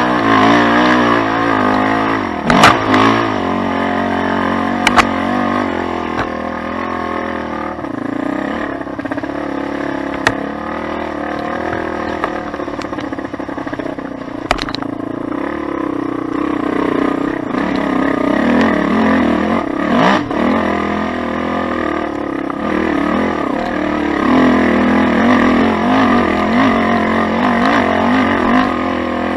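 Suzuki Z400's four-stroke single-cylinder engine running under constantly changing throttle over a rough dirt trail, its pitch rising and falling as it revs up and backs off. A few sharp knocks from the machine hitting bumps stand out, the loudest about two and a half seconds in.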